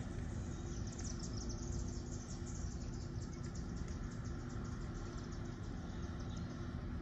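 Street ambience: a steady low rumble of traffic and wind, with a rapid, high-pitched trill of chirps that fades in about a second in and fades out near the end.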